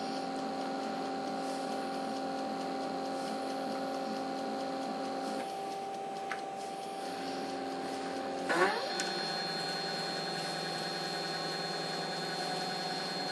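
Stepper motor drive of an Emco Compact 5 CNC lathe whining steadily as the carriage feeds slowly along the Z axis. The pitch changes about five seconds in, and after a brief rising sweep near nine seconds a higher whine joins.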